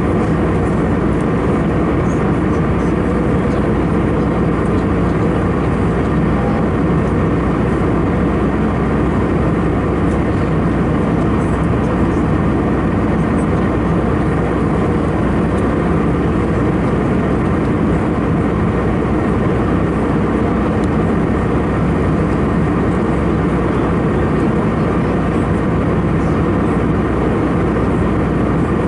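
Steady cabin noise of an Airbus A319-111 in flight: the drone of its CFM56-5B turbofan engines and the airflow over the fuselage, even and unbroken, mostly low, with a faint steady whine above it.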